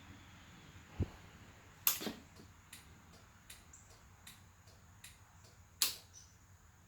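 Two sharp clicks, about two seconds in and again near six seconds, with a dull thump shortly before and faint small ticks in between, typical of a motorcycle handlebar turn-signal switch being pushed on and then cancelled.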